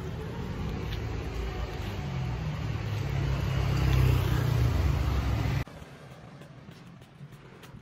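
A motor vehicle engine passing close on a street, rumbling louder over about four seconds. It cuts off abruptly a little over halfway through, leaving faint street noise.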